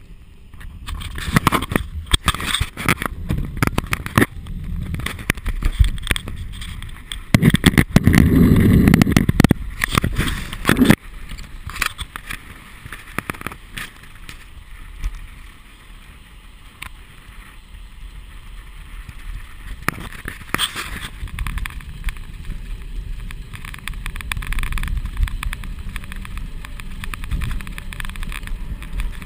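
Wind rushing over the microphone of an action camera on a moving road bicycle, with the rumble of tyres on a paved path. The first ten seconds or so are full of knocks and rattles, with a louder rush from about seven to eleven seconds in; after that the wind and rumble run steadier and quieter.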